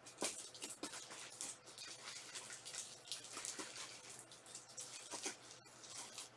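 Faint, irregular rustling and light ticks of Panini Prizm trading cards and their pack wrappers being handled and flipped through.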